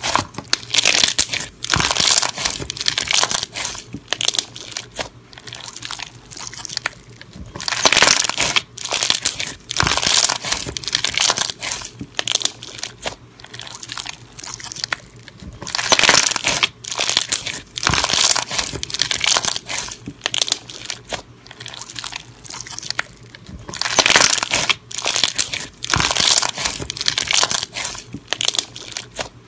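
Bead-filled purple crunchy slime squeezed and pressed by hands: dense crackling and crunching in bursts of a second or two as the beads pop and grind, with short quieter gaps between squeezes.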